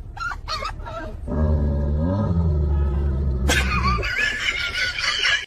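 A dog's low, drawn-out rumbling vocal sound lasting a couple of seconds, followed by a higher, wavering sound; the audio cuts off abruptly at the end.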